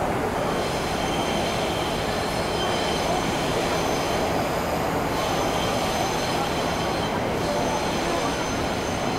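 Train running on rails: a steady rumble with several high, held wheel-squeal tones over it.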